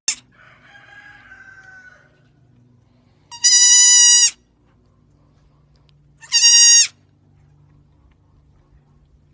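An animal calling twice, each call a loud, high, piercing cry about a second long on a steady pitch, a few seconds apart.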